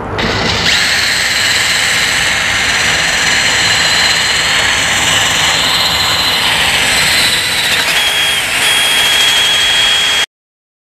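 Cordless drill spinning a 60-grit flap sander wheel inside the catalyst bore of an exhaust manifold, sanding off leftover fiberglass wrap: a steady high motor whine over a constant abrasive rasp. The whine shifts slightly in pitch about eight seconds in, and the sound cuts off suddenly near the end.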